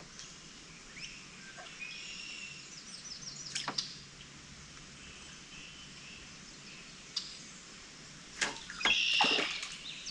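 Wild birds chirping and calling in a swampy woodland, with short runs of quick high notes and a louder burst of calls near the end. A few sharp clicks stand out, once about four seconds in and twice near the end.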